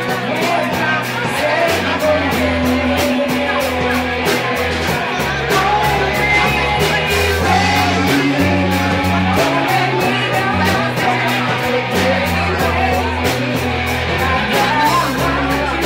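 Live band playing a song: a singer over guitar and bass notes that change every second or so, with a steady beat.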